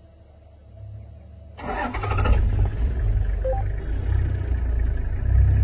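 Safari vehicle's engine starting about a second and a half in, then running with a steady low rumble.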